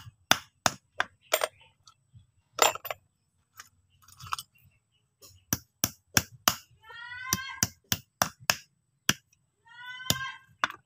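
Claw hammer tapping bent, used nails straight on a wooden block: sharp, irregular metal-on-wood taps, some in quick runs with short pauses between. A short, high animal call sounds twice, in the second half.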